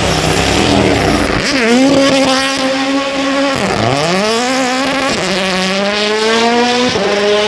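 Race car engine accelerating hard, its note climbing in pitch and dropping sharply at each gear change, several times over.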